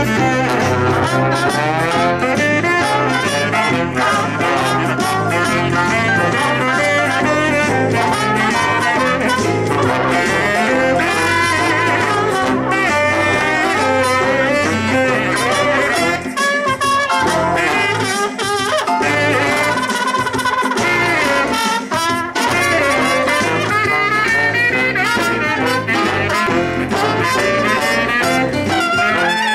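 Small New Orleans-style jazz band playing live: trombone and trumpet leading over saxophone and keyboards, with a stepping bass line. The bass drops out for a few seconds about halfway through, then comes back.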